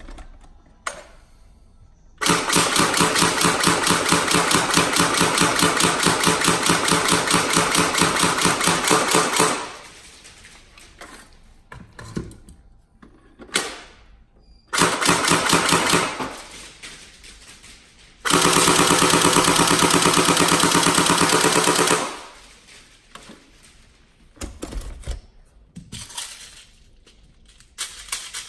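Tokyo Marui AA12 electric airsoft shotgun, fitted with an M90 upgrade spring and a Nuprol high-torque motor, firing fully automatic: the gearbox cycles in rapid, even shot after shot. It comes in three bursts: a long one of about seven seconds, a short one of about a second, and one of about four seconds.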